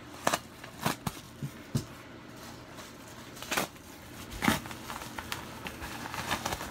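Scissors snipping through a kraft paper envelope with several sharp cuts in the first couple of seconds, then paper crinkling and rustling as the envelope is pulled open and its contents handled.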